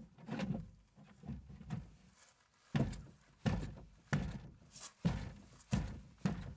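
A plastic clip-on sunshade panel being pushed and knocked into place on a car window: faint handling sounds, then a run of about seven dull knocks, roughly one every two-thirds of a second, starting a little under three seconds in.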